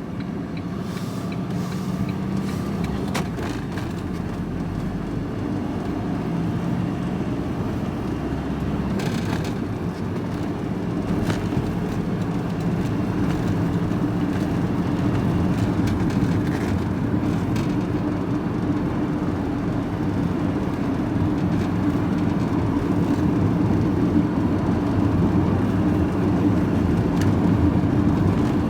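Steady engine hum and road noise heard from inside a vehicle cab while driving, growing gradually louder, with a couple of brief clicks about a third of the way in.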